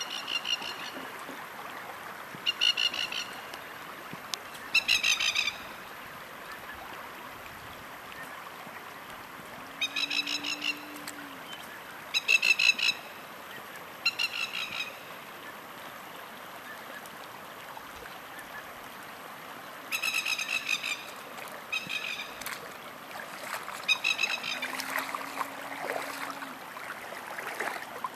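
Shallow floodwater running steadily across a paddock, with a bird breaking in about nine times with short bursts of rapid, repeated high calls, the loudest sound.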